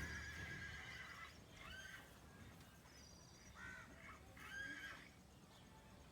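A horse whinnying faintly: one call of about a second, then three short calls.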